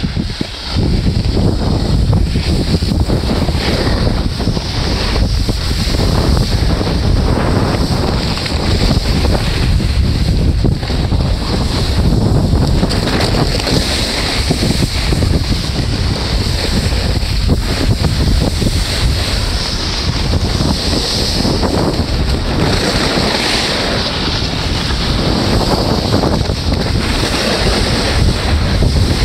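Wind buffeting the microphone as the camera moves down a ski slope: a loud, steady rumble that starts abruptly about a second in, with a hiss of a snowboard sliding over snow above it.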